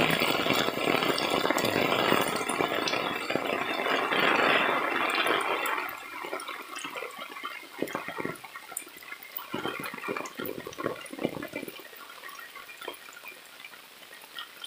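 Heavy monsoon rain pouring down, a dense steady hiss. About six seconds in it drops to quieter rain with separate drips and splashes, fading toward the end.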